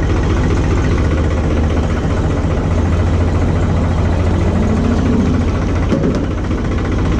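A New Holland tractor's diesel engine runs steadily at idle throttle, lugging along under light load as the tractor creeps slowly in reverse gear on the clutch alone.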